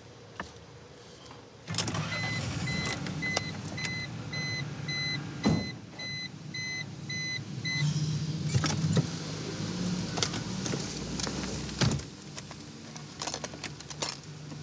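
Car's warning chime beeping evenly, about two to three beeps a second for several seconds, amid thumps, clicks and rustling as someone settles into the car seat. A low steady hum sets in after the chime stops.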